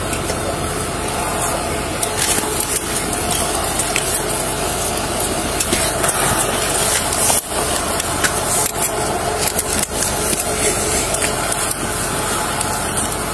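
Cloth and a bag rustling and scraping against a body-worn camera's microphone, a continuous crackling rustle with small clicks, over a steady low rumble.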